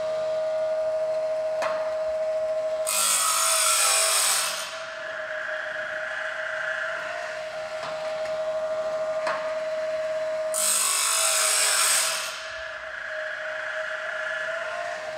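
Woodland Mills automatic bandsaw blade sharpener running with a steady motor whine. Twice the grinding disc rasps loudly against a blade tooth for about a second and a half, and the whine drops slightly in pitch under the load. A few light clicks come in between; these are the first sharpening cycles as the grind is fine-tuned.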